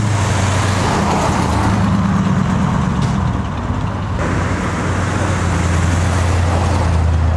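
Engines of classic American cars driving slowly past one after another, a blue early-1970s Buick convertible and then a black 1967 Plymouth, with a loud, deep, steady exhaust note.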